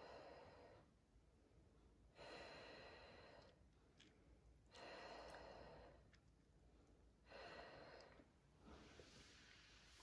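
A woman's slow, deep breaths, long and regular about every two and a half seconds, as she breathes through a labour contraction.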